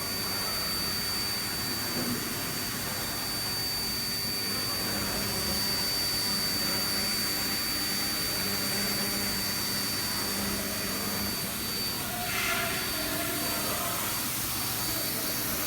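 5-axis CNC router running steadily: a constant high spindle whine over a steady rushing noise.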